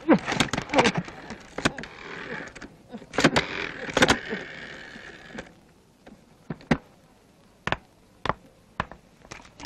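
Animated-film sound effects: a busy run of sharp clicks and short falling squeaks over a hiss, thinning about halfway through to a few scattered single clicks.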